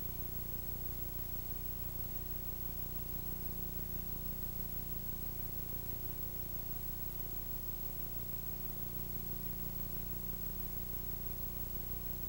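Steady hiss with a low mains hum and no other sound: the background noise of a video dubbed through several generations of VHS tape.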